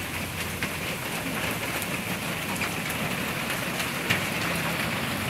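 Heavy hail falling, a dense steady patter of stones striking the ground and surrounding surfaces, with scattered sharper clicks of individual hailstones.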